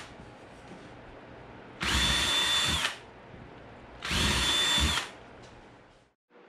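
Cordless drill boring 1/8-inch pilot holes into the ends of wooden slats, to keep the wood from splitting when the screws go in. Two short bursts of about a second each, the motor's high whine winding up at the start of each and down as it stops.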